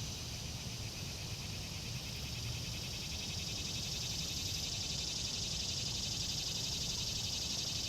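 Steady chorus of insects, a high pulsing drone that swells slightly a couple of seconds in, over a low steady rumble.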